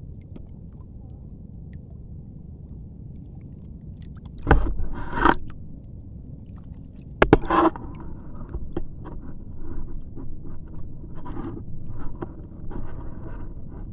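Water sloshing and splashing in shallow water, with two loud splashes about four and a half and seven seconds in, then a run of smaller irregular splashes over a steady low rumble.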